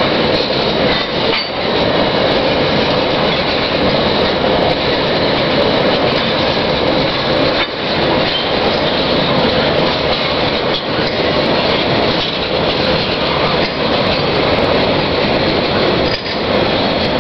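Freight wagons of a coal train rolling past: a steady, loud rumble of steel wheels on rail with occasional clicks as the wheels cross rail joints.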